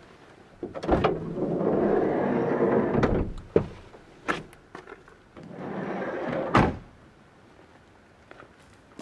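Honda N-VAN's sliding side door rolling along its track, a few clicks and knocks, then rolling again and shutting with a thud about six and a half seconds in.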